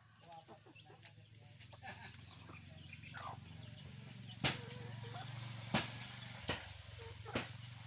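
Chickens clucking, with a few sharp cracks from burning firewood under the woks. A low steady hum builds through the middle and eases near the end.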